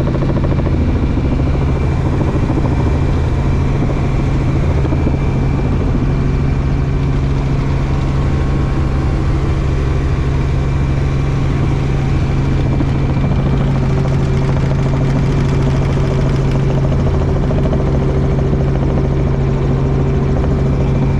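Helicopter rotor and turbine noise heard from inside the cabin in flight: a loud, steady drone with a strong low hum.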